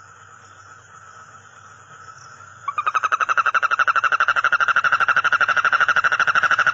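A frog calling in a loud, rapid trill of evenly spaced pulses, starting a little over two and a half seconds in, over a fainter steady trill.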